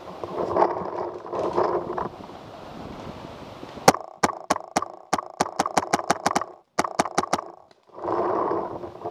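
A paintball marker firing in quick bursts: about seventeen sharp pops over roughly three and a half seconds, with a short break partway through. Before and after the shots, dry leaves crunch and rustle as the player moves on the forest floor.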